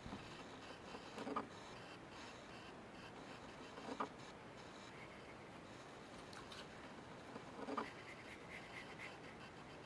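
Faint brushing of a watercolour brush on paper, with three short, louder strokes spaced a few seconds apart.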